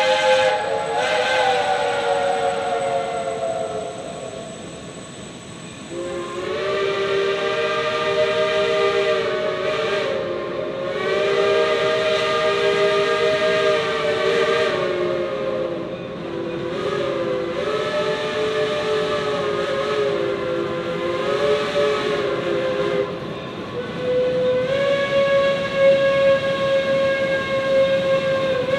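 Three-chime steam whistles on geared steam locomotives blowing long blasts that sag and waver in pitch. They fade about four seconds in, come back strongly about two seconds later, and change to a steadier held chord near the end.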